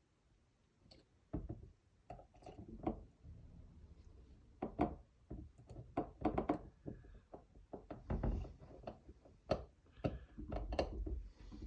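Hard plastic airsoft magazine parts being handled, giving irregular knocks, taps and clicks that come thicker in the second half.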